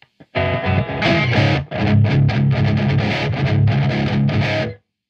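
Distorted electric guitar, a Jackson played through a Black Cat Amps Djenttonic overdrive pedal into a Randall Diavolo amp: a low, choppy metal riff with many quick stops. There is a short break about a second and a half in, and the riff stops abruptly near the end.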